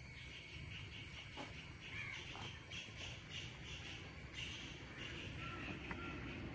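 Quiet lakeside ambience with birds calling in the distance: a fast run of repeated calls for about the first four seconds, then a few short faint calls, over a steady high-pitched whine.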